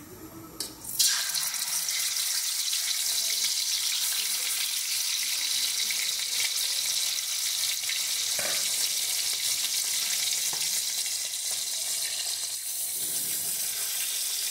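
Whole bhangon fish frying in hot oil: a loud, steady sizzle that starts suddenly about a second in as the fish go into the oil.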